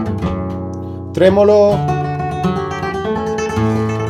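Flamenco guitar being played: notes from a fast picado run ring out and fade, then after a brief spoken word the guitar continues with quick repeated plucked notes of a tremolo passage.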